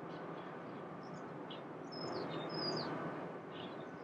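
A songbird whistles two quick calls about two seconds in, each a high note sliding down to a lower one, with a few fainter chirps around them. Under the calls runs a steady low background rumble.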